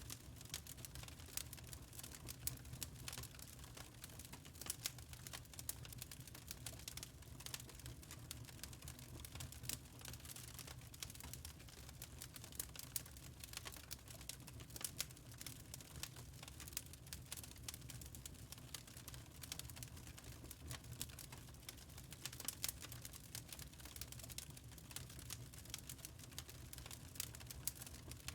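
Wood fire crackling in a fireplace: dense, irregular small pops and snaps from burning logs over a low steady rumble.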